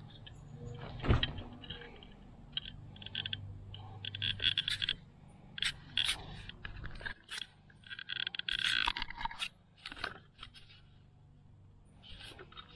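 Handling noises as things are moved about: irregular scrapes and clicks, with one hard thud about a second in.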